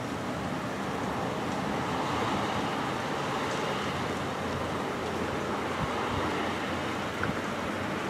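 Steady hiss of rain during a thunderstorm, swelling slightly a couple of seconds in.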